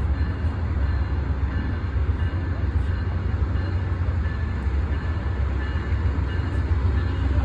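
Amtrak diesel-electric locomotive idling at the platform: a steady low rumble with a faint constant whine above it.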